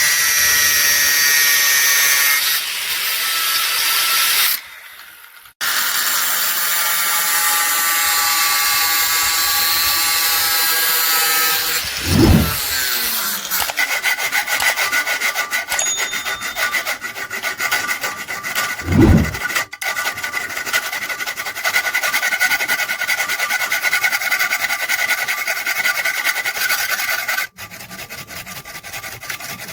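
Steel saw-blade stock being cut or filed by hand: a continuous rasping with a ringing squeal from the metal, then quicker, even strokes from about halfway. The sound cuts off abruptly twice, and two brief low thumps come near the middle.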